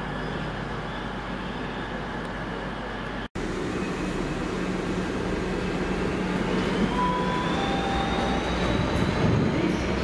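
Heavy freight train running past on the line. The sound cuts out for an instant about a third of the way through, then comes back louder, with a low hum and a thin high whine that slowly rises in pitch.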